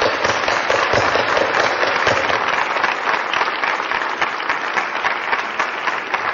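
Audience applauding, many hands clapping at once; the applause eases a little near the end.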